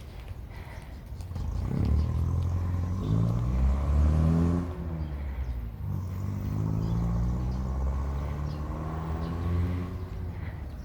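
A motor vehicle's engine running close by, coming in about a second and a half in, its pitch rising and dipping as it revs, then holding steadier.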